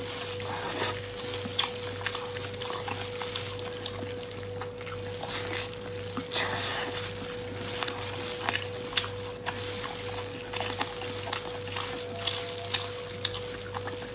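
Close-up wet chewing and lip smacking while eating sticky braised pork: irregular moist clicks and smacks over a steady hiss, with a faint steady hum underneath.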